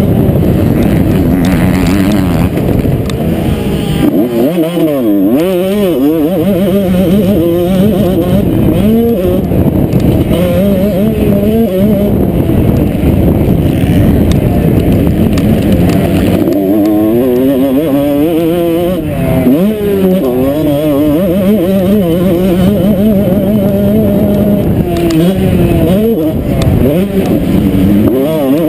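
Motocross bike engine heard from the rider's helmet camera, revving up and falling back again and again as the bike accelerates out of corners and shifts gear, over a constant low rumble.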